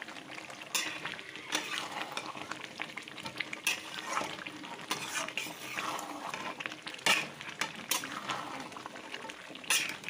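Thick yogurt chicken curry being stirred in a kadai, the reduced gravy sizzling steadily, with irregular scrapes and knocks of the cooking spoon against the pan every second or two.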